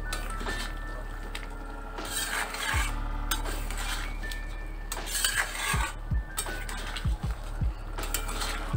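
A metal spatula stirs a thick, simmering dal-and-vegetable curry in a metal kadai, scraping and clinking against the pan. The strokes come in bursts about two, five and eight seconds in.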